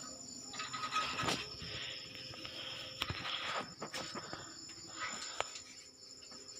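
Night insects trilling at a steady high pitch, with a few scattered clicks and rustles.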